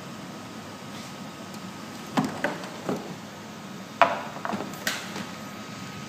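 Magic mirror skin analyzer's camera taking the face photos: a few sharp mechanical clicks in two short clusters, about two seconds in and again about four seconds in, over a faint steady room hum.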